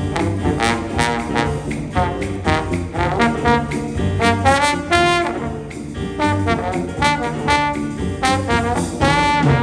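A band playing, with brass horns carrying the melody over bass and a steady drumbeat.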